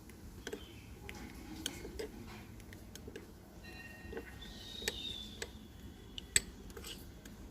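Scattered light clicks and taps of a spoon and small bowl as the remedy is stirred, the loudest a single sharp click about six seconds in. Faint bird chirps sound behind.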